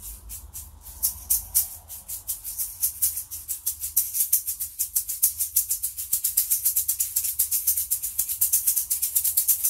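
Small maracas shaken by hand. A few separate shakes come first, then they quickly build into a fast, even rhythm, imitating a train getting under way.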